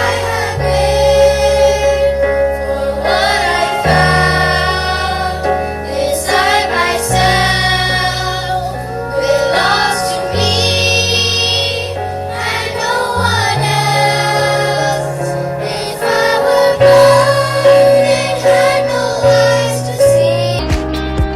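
A group of children singing a song together with instrumental accompaniment, over held bass notes that change every couple of seconds.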